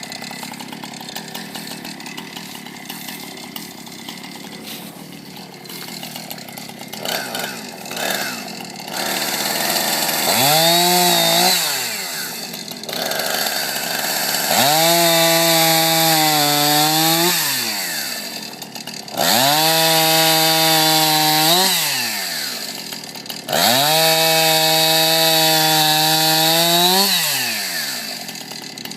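Chainsaw revving to full speed and dropping back four times, each burst lasting about two to four seconds, with a steady high engine note while held. For the first several seconds it runs rougher and lower, with scratchy noise.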